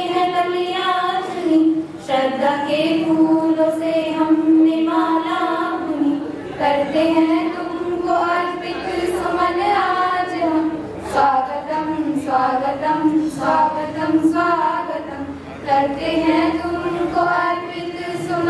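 A group of schoolgirls singing a welcome song (swagatam geet) together in long, held phrases.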